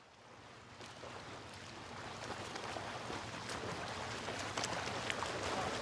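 Outdoor ambience fading in from silence: an even rushing noise with scattered sharp clicks and knocks over a faint low steady hum.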